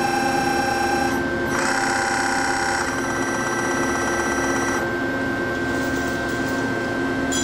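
Fanuc servo motor driving the Nikken 4th-axis CNC rotary table round in short powered moves: an electric whine that stops about a second in, starts again louder from about one and a half to three seconds, then a fainter high tone that fades out around five seconds. A steady low hum runs underneath.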